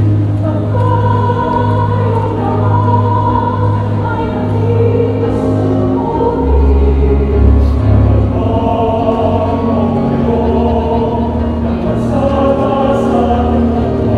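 Choir singing a hymn with instrumental accompaniment, long held notes over a steady low bass.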